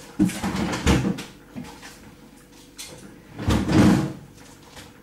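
Knocks and clatter of a kitchen cupboard door being opened and shut and things being moved about inside while searching for an item, in two bursts, the second, about three and a half seconds in, the louder.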